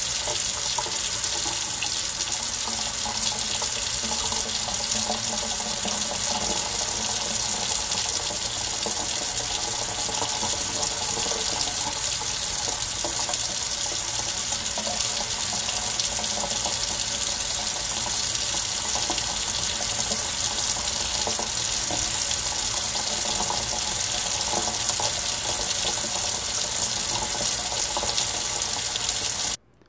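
Kitchen faucet running steadily into a stainless steel sink, the stream splashing as a fountain pen is rinsed under it to flush out the ink.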